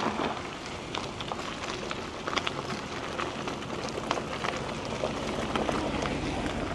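Mountain bike tyres rolling over a gravel trail: a steady crunching hiss dotted with many small ticks of gravel under the tyres.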